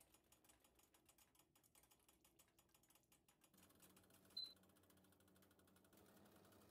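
Near silence, with faint rapid clicking and one brief high beep about four seconds in.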